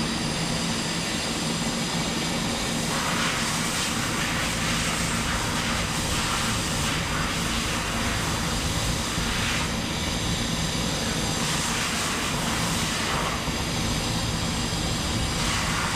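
Hitachi Seiki Super HiCell 250 CNC turning and milling centre running: a steady machine hum with a hiss above it that changes every three to four seconds.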